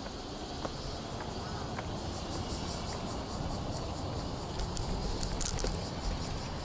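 Bicycle riding with steady rolling and wind rumble. About two seconds in, the freewheel ticks at about five ticks a second for a couple of seconds while the rider coasts, and a few sharp clicks follow. The bike is a Renault Platinum Light 8 folding bicycle.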